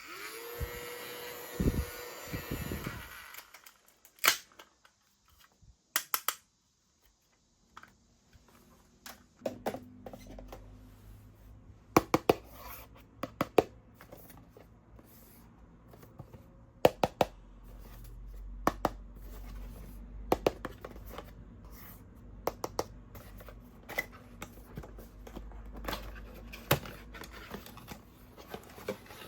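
Sharp clicks, taps and handling noises from a mini desktop fan and its packaging being handled. A steady low hum comes in about ten seconds in and carries on under the clicks.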